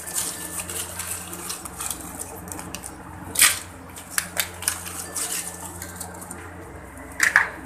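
Ice cubes and kitchenware being handled at a plastic blender jar: scattered light clicks and ticks, with two louder clatters, one about three and a half seconds in and one near the end.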